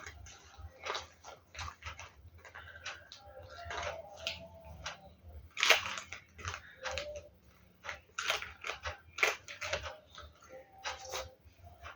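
Paper and plastic crinkling and rustling in short, irregular bursts as a homemade paper squishy is handled and shaped.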